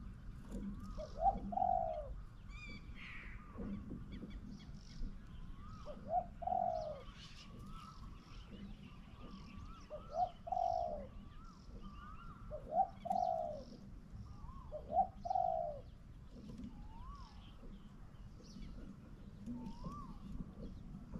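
Spotted dove cooing: short groups of arching coos every few seconds. Small birds chirp thinly in the background.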